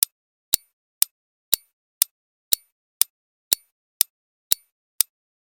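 Countdown-timer clock sound effect: sharp, even ticks about two a second, with silence between them.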